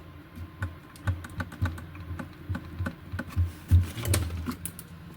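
Irregular small clicks and light knocks, about two or three a second, with a louder knock about four seconds in, as an LED TV is being switched on by hand.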